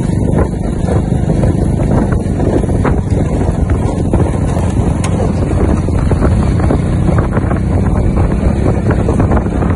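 Loud, steady wind rumble on the microphone over the running of a motor vehicle moving at speed, with scattered faint knocks.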